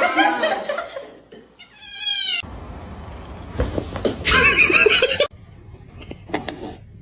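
Domestic cat meowing a few times, with drawn-out calls.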